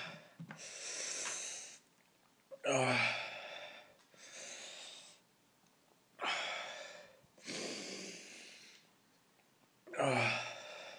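A man breathing heavily through his open mouth, in slow loud breaths, about three in and out. Some of the outward breaths start with a little voice. He is panting through the burning heat of a Carolina Reaper pepper.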